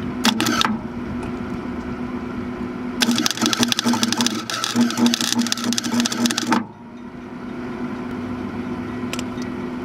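Wire-feed welder arc crackling: a brief burst just after the start, then about three and a half seconds of continuous sputtering crackle that cuts off suddenly, over a steady hum. It is laying weld onto a seized wheel-lock lug nut so it can be turned off.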